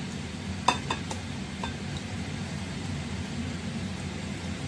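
A utensil clinks sharply against a small bowl four times in the first two seconds as cubed pork is stirred in its marinade, over a steady low hum.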